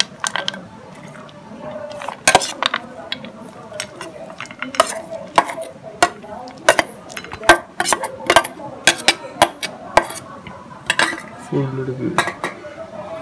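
A metal spoon scraping and clinking against a stainless steel bowl, scooping a dry mix of peanuts and chopped vegetables out onto a plate, in irregular sharp clinks and scrapes.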